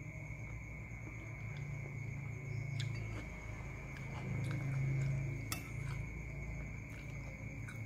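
Metal spoon clinking and scraping against a ceramic bowl while eating, with a few sharp clinks, the loudest about five and a half seconds in. A steady high-pitched cricket chirp runs underneath.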